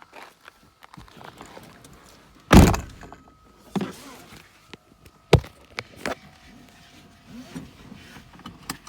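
A car door shutting with a heavy thunk about two and a half seconds in, followed by several smaller clunks and knocks.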